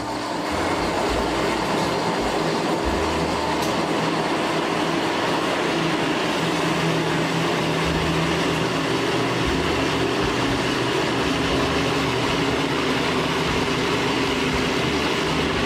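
Countertop jug blender running steadily, puréeing cooked vegetables and chunks of yuca into a thick purée.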